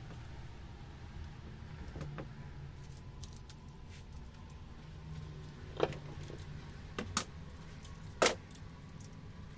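Hand tools being handled and set down on a metal workbench: a few sharp clicks and knocks, the loudest about six and eight seconds in, over a steady low hum.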